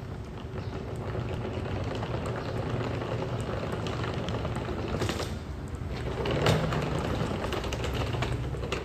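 Gas fire pit burning over lava rocks: a steady low rumble with crackling, and a few sharp clicks about five and six and a half seconds in.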